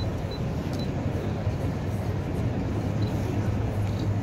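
Steady low rumble of outdoor city background noise, even in level with no distinct events.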